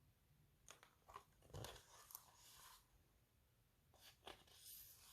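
Near silence, with a few faint small clicks and rustles.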